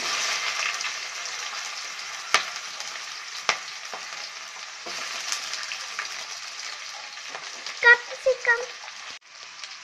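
Sliced onions dropped into hot oil with cumin seeds, sizzling loudly at first and settling into a steady frying hiss, with a couple of sharp knocks. Near the end a few short pitched squeaks are heard.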